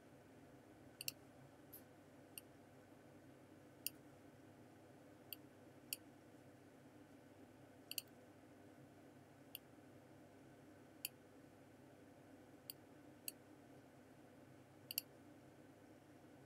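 Computer mouse clicking about a dozen times at irregular intervals, with a quick double click about a second in, over a faint steady room hum.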